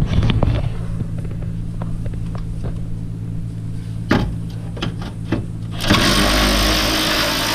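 Power ratchet running steadily from about six seconds in, backing out a 10 mm grill bolt, after a few light clicks and knocks as the tool is fitted onto the bolt. A steady low hum lies underneath throughout.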